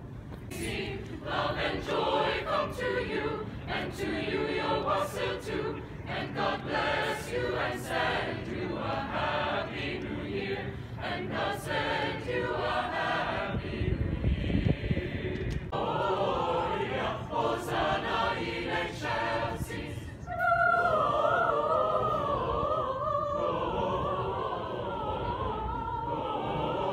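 Mixed choir of men's and women's voices singing together; about twenty seconds in they rise to a louder, long-held chord.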